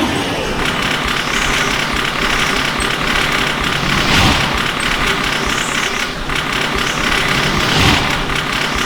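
Train passing over a level crossing: a loud, steady rush of rail noise that swells several times.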